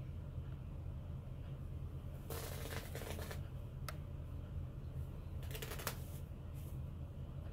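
Shirt fabric being yanked and strained by hand: two noisy bursts of about a second, some three seconds apart, with a sharp click between them and a shorter burst near the end, over a steady low hum.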